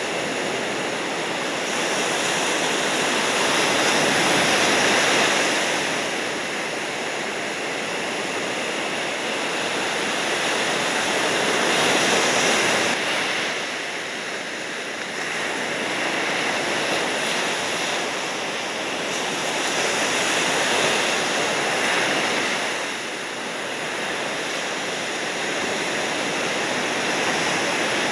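Ocean surf: a steady rush of waves breaking and washing in, swelling and easing every few seconds.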